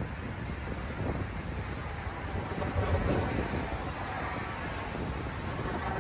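Wind buffeting the microphone, with cars driving past.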